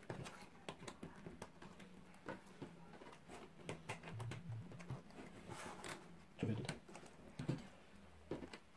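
Cardboard jigsaw puzzle pieces being handled and pressed into place on a wooden tabletop. They make scattered light taps and clicks, with a few louder knocks.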